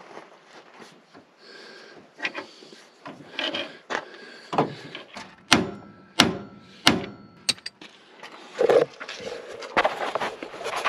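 A hammer striking the steering gear under a pickup truck: about five sharp metal blows in quick succession in the middle, one leaving a brief ring, with tool clanks and scraping before and after. It is part of the work of freeing a pitman arm that is rusted onto its shaft.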